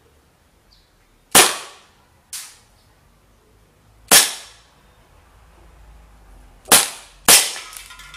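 Red Alert CO2 air pistol firing steel BBs, one shot at a time: sharp pops at uneven intervals of one to three seconds, one of them fainter, the last two close together.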